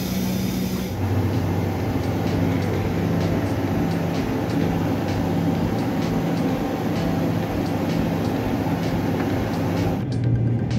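Steady in-flight cabin noise of a McDonnell Douglas MD-83, its rear-mounted Pratt & Whitney JT8D turbofans and the airflow giving a constant hum with faint regular ticks. The sound changes abruptly about a second in and again near the end.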